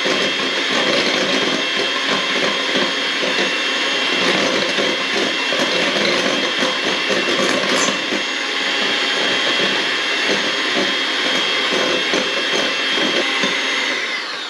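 Electric mixer whipping cold heavy cream in a chilled bowl, running with a steady high whine, then switched off and winding down just before the end.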